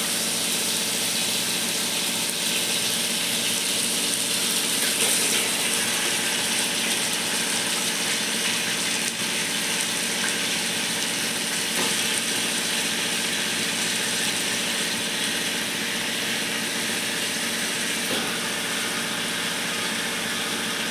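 Chicken pieces frying in hot oil and masala in a cooking pot: a steady sizzling hiss.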